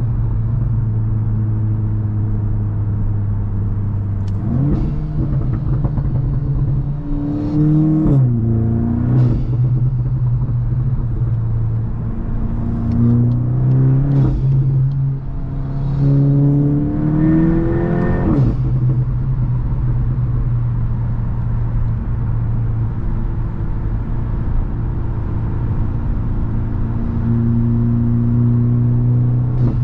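Tuned Mk8 VW Golf GTI's turbocharged 2.0-litre four-cylinder with an aftermarket catback exhaust. It drones at a steady cruise, then twice accelerates hard, its pitch climbing and dropping back as it shifts or lifts off. A few sharp pops from the exhaust come near the acceleration runs.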